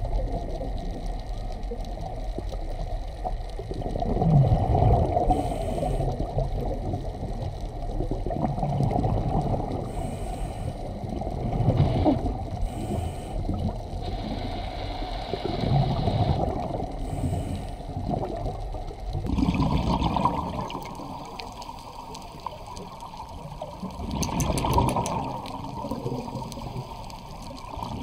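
Muffled underwater water noise with bubbling gurgles, swelling every four seconds or so.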